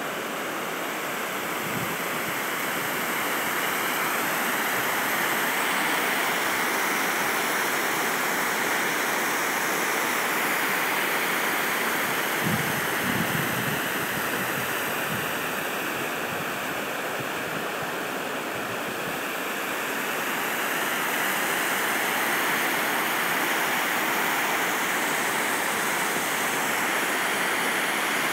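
Water pouring over a low dam spillway: a steady rushing hiss. A brief low rumble comes about halfway through.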